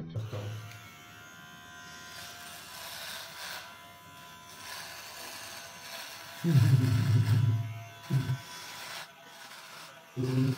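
Cordless electric beard trimmer buzzing steadily as it cuts through a full beard. A man's low wordless voice breaks in loudly for about a second two-thirds of the way through, then briefly twice more.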